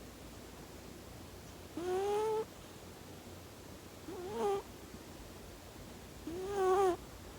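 A Scottish Straight kitten snoring in its sleep: three short, squeaky, high-pitched snores, each about half a second long and about two seconds apart, each rising slightly in pitch.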